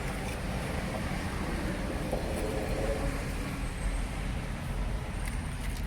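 Steady road traffic noise from a nearby motorway: an even rumble of passing vehicles with no single distinct event.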